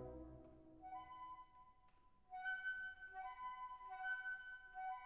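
Background instrumental music: a melody of held notes that fades out of a louder passage at the start, goes quiet, and picks up again a little past two seconds in.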